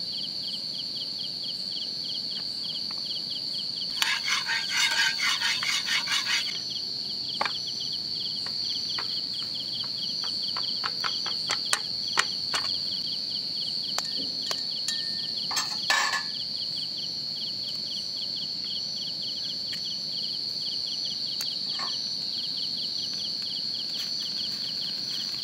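Forest insect chorus: one continuous high-pitched trill with a fast pulsing chirp just beneath it. A rattling clatter lasts about two seconds near the start, and scattered sharp clicks and taps follow through the middle.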